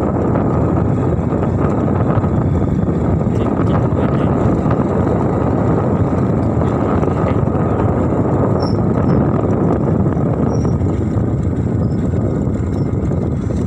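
Steady rumbling noise of a vehicle in motion, unbroken throughout.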